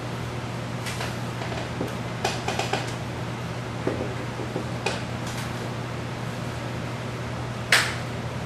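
Steady low hum and hiss of room or recording noise, broken by scattered light clicks and knocks, the sharpest one near the end.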